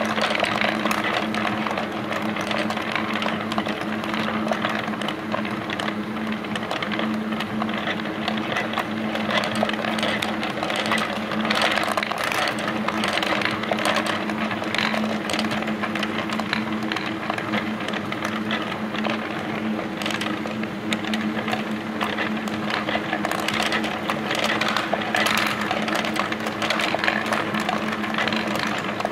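Laser-cut wooden marble machine running: a steady electric-motor hum under a constant, irregular clatter of steel ball bearings rolling, hopping and dropping along the wooden tracks and steps.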